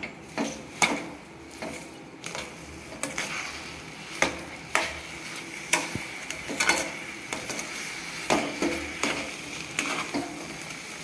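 Steel spoon stirring thick semolina and sugar in a stainless steel pan, with irregular scrapes and knocks of metal on metal, as the sugar is worked into the cooked rava kesari. A faint steady hiss runs underneath.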